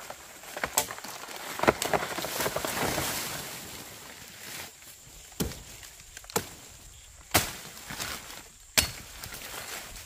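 A series of about six sharp knocks at uneven intervals, with a stretch of rustling and crackling between about one and four seconds in.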